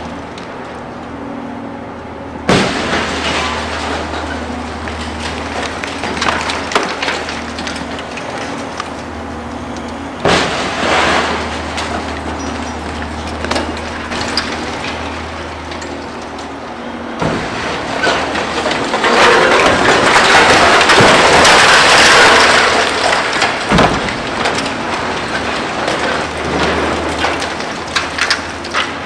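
Demolition of a concrete high-rise: a heavy machine's diesel engine drones steadily under repeated cracking and clattering of breaking concrete and falling debris. About two-thirds of the way through, a louder rush of rubble crashing down lasts a few seconds.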